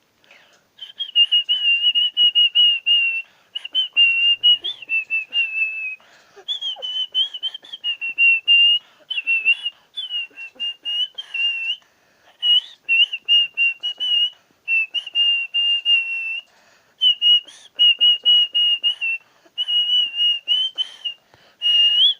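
A person whistling a tune by mouth in the style of artistic whistling: a high, clear melody of many short, quick notes in phrases with brief pauses between them.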